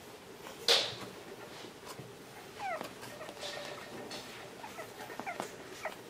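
French bulldog puppies whimpering and squeaking in short cries that fall in pitch, several over the last few seconds. Just under a second in there is one short, sharp, loud sound.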